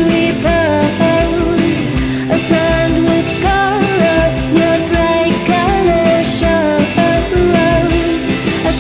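Rock song with singing over guitar and a steady drum beat.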